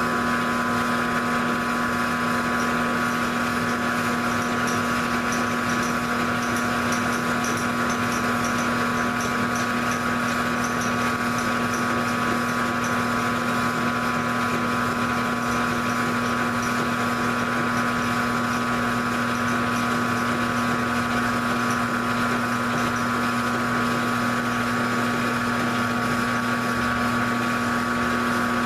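Grizzly G0705 mill/drill running steadily with a constant whine while a pass about ten thousandths deep is fed through the workpiece.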